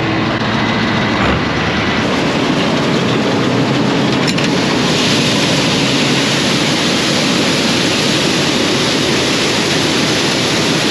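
Loud, steady farm machinery running: a continuous noisy roar with a faint low hum, growing a little brighter about halfway through.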